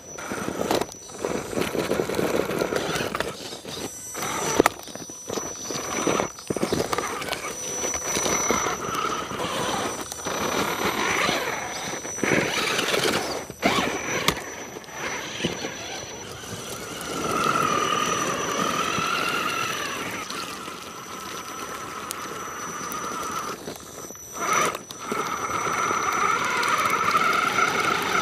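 The electric motor and geared drivetrain of a radio-controlled rock crawler whine, the pitch wavering as the throttle comes and goes. Its tyres crunch through snow and crusted ice, with scattered sharp knocks.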